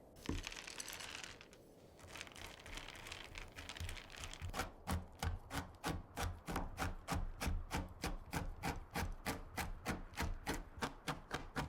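A knife chopping a bar of chocolate on a cutting board in steady, quick strokes, about four a second, that begin about four seconds in and grow firmer. A short rubbing sound comes first.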